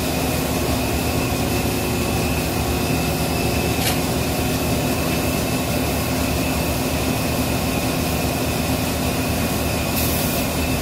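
Steady hum of machine-shop motors, with a constant whine over it. A single sharp click about four seconds in, and a brief hiss near the end.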